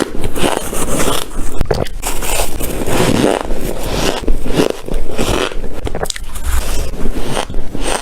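Squeaky, crunching freezer frost, close to the microphone, in a dense run of irregular crunches.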